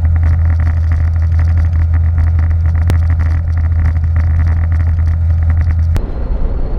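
Outboard motor of a small skiff running at a steady speed, a loud, even low drone. It cuts off abruptly about six seconds in.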